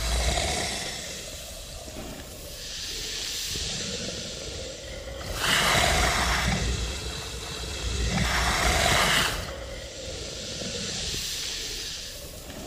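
Giant serpent (basilisk) creature sound effect: a series of long, breathy hisses that swell and fade every couple of seconds. The loudest two come about six and eight seconds in, with a low rumble under them.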